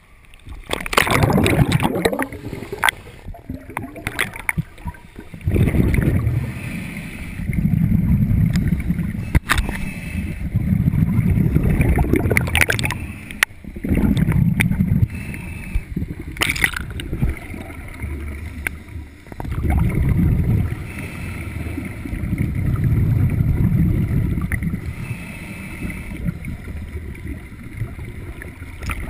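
Scuba diver breathing through a regulator underwater: exhaled bubbles rumble out in bursts lasting a second or more, every few seconds, with quieter inhalations between them. A few sharp clicks come through as well.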